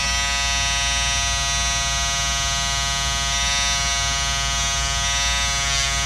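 Wahl Peanut electric shaver running with a steady buzz while its blade is worked against the back of embroidery stitches on a shirt.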